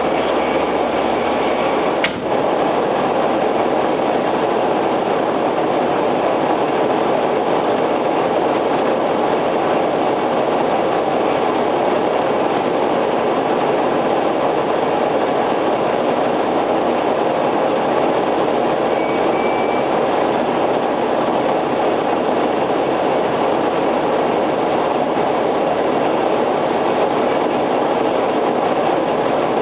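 Fire engine on the move: steady engine and road noise without a siren.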